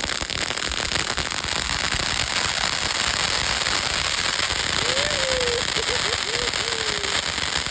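Fireworks crackling continuously: a dense, unbroken rapid crackle with no separate bangs.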